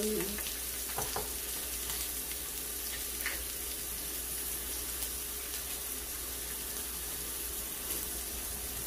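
Meat sizzling steadily on an electric tabletop grill plate, with a few faint clicks.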